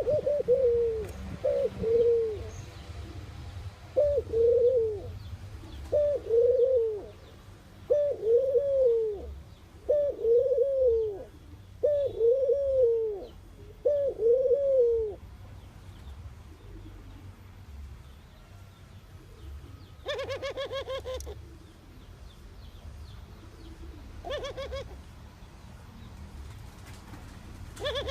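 A dove cooing: about eight single rounded coos, one roughly every two seconds. After a pause, three short, buzzy, rapidly pulsed calls follow near the end.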